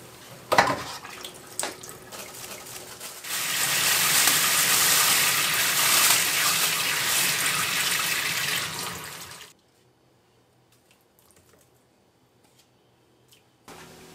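Kitchen tap running into a stainless-steel sink for about six seconds, then shut off sharply. A couple of light knocks from handling at the sink come before the water starts, and faint ticks follow after it stops.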